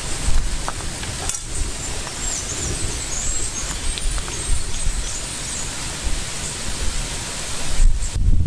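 Wind on the microphone outdoors: a steady rushing hiss with a heavy low rumble, and faint high chirps in the middle.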